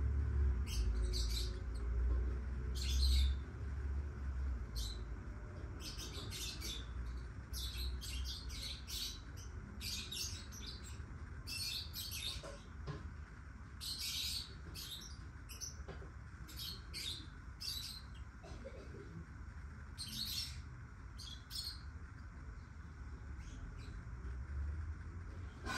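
Black-winged lovebirds chirping: many short, high chirps in quick runs, over a low steady hum that is strongest in the first few seconds.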